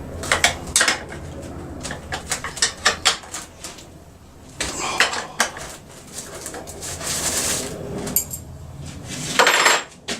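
Metal clinks, clicks and knocks of hand tools and chainsaw parts being handled while the side cover with new felling dogs is fitted back onto a Stihl MS 391 chainsaw. The clicks come quickly at first, with short scraping sounds later and a louder clatter near the end.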